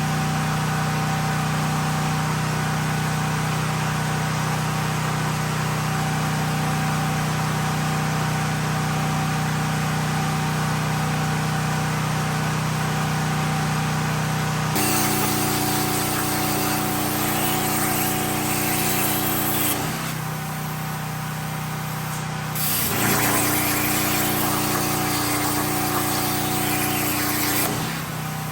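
Plasma torch on a CNC plasma table cutting steel, a loud hiss of air and arc that comes in about halfway through, breaks off for about three seconds, then runs again until just before the end. Under it a generator engine runs with a steady hum.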